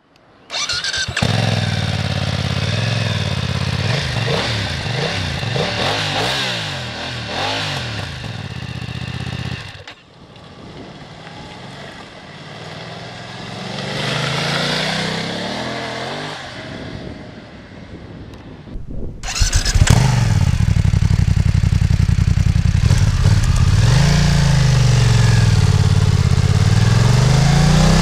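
BMW F 900 R's parallel-twin engine through its stock exhaust silencer, revved up and down repeatedly. It is loud at first, then quieter for several seconds in the middle, swelling and fading once, before it comes back loud with more rising and falling revs.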